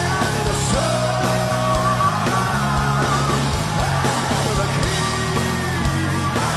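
A heavy metal band playing live at full volume: distorted electric guitars hold long lead notes over bass and drums.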